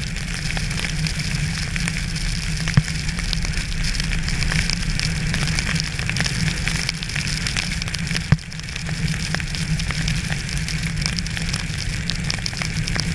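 Steady pattering of sleet and rain on surfaces, a crackling hiss made of many small ticks, with a low rumble underneath and a couple of sharper clicks about 3 and 8 seconds in.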